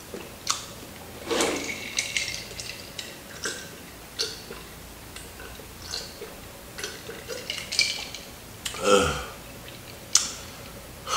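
Close-miked mouth sounds of eating crispy fried chicken: irregular crunches, clicks and lip smacks while chewing, with a louder throaty sound about nine seconds in.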